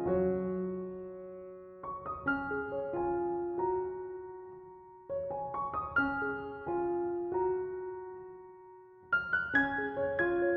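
Background piano music: slow phrases of struck notes that ring and fade away, a new group of notes starting every few seconds.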